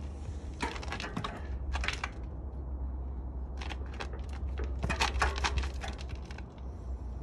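Bursts of light metallic clicking and rattling from a mountain bike as a rider settles his weight onto it, compressing the rear suspension, over a steady low rumble.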